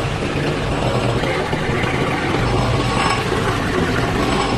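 A heavy vehicle engine running steadily close by, with a low even hum and no change in pace.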